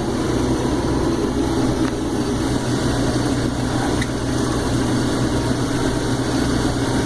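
Case IH 2388 combine running steadily while harvesting corn, a constant engine and machinery hum heard from the operator's cab.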